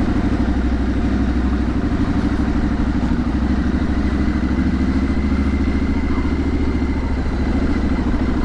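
Triumph Street Scrambler's 900cc parallel-twin engine running steadily at low revs through its exhaust, with a fast, even pulsing beat.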